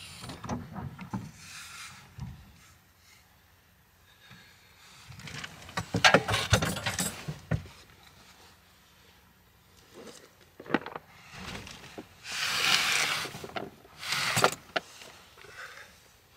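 Knocks, clatter and scraping of camping gear being handled and moved around in a pickup truck bed under a camper shell. A cluster of louder knocks comes about six to seven seconds in, and two swishing noises follow near the end, one about a second and a half long and one shorter.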